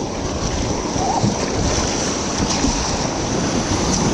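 Steady rush of river water around a raft, with wind noise on the action camera's microphone.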